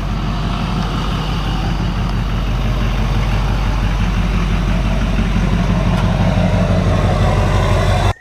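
Chevrolet 2500HD pickup's Duramax V8 turbodiesel idling with a steady, even rumble, cutting off suddenly near the end.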